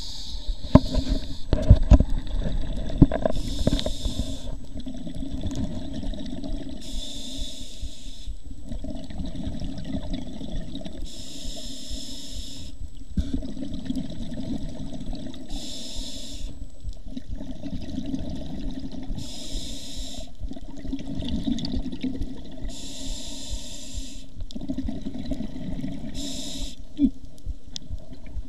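Scuba diver breathing through a regulator underwater: a short hiss alternates with a longer low bubbling rumble, about one breath every four seconds. A few knocks in the first three seconds.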